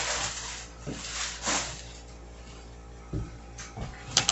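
Handling noise: a few brief rustles, a low thump a little after three seconds in, and light clicks near the end.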